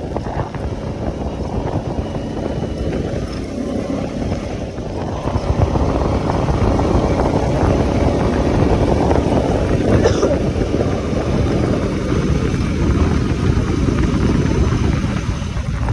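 Honda 520 four-wheeler's single-cylinder engine running as the ATV is ridden. It grows louder about five seconds in and eases off again near the end.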